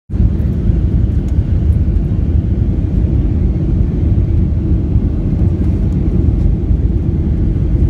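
Steady low rumble of a jet airliner's cabin noise, from the engines and rushing air, heard inside the cabin during the descent to land.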